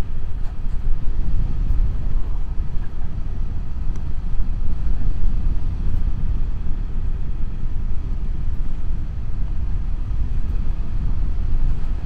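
Steady low wind and road rumble of a KTM 390 Adventure motorcycle cruising, as picked up by a lavalier mic with the helmet visor closed.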